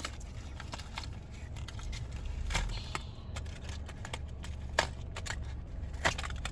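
Plastic packaging of a fidget spinner being cracked and pried open by hand: crinkling with scattered clicks and snaps, the loudest a sharp snap near five seconds and another near six. A low steady rumble of the car cabin lies underneath.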